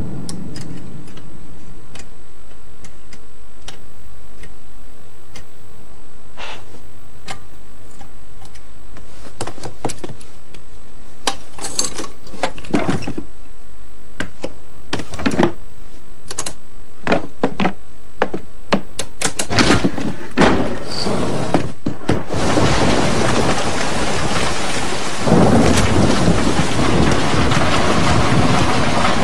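A low rumble with scattered knocks and thuds, then heavy rain falling steadily from about two-thirds of the way in.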